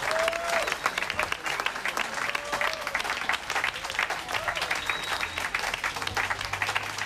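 Audience applauding: dense, steady clapping, with a voice or two calling out above it.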